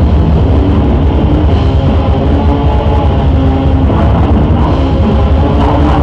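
Live heavy metal band playing at full volume: distorted guitars and bass over drums in one dense, loud wall of sound.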